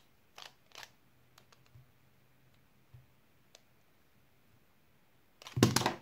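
Plastic 2x2x1 puzzle cube clicking as its layers are turned a few times. Near the end comes a quick, louder cluster of clicks and taps as the cube is solved in a fraction of a second and the hands come down on a tablet's touch-screen timer.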